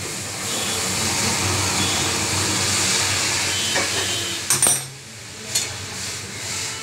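Hot water poured into roasted moong dal in a hot steel kadai, giving a loud, steady rushing hiss that dies away after about four seconds. A metal ladle then clinks sharply against the steel pan a few times as the dal is stirred.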